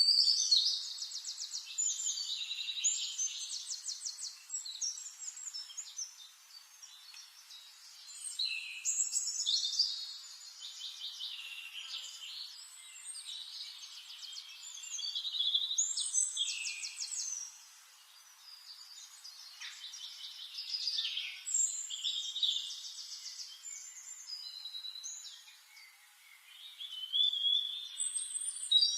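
Forest songbirds singing: high, bright phrases full of fast trills and quick pitch slides, coming in bouts every few seconds.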